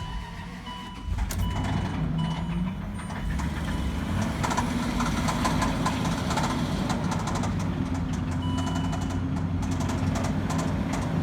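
2005 Range Rover engine, wrecked by being run out of oil, catching about a second in and then running with a dense, rapid knock: the sound of a blown engine. A repeating beep sounds at the start and again briefly later.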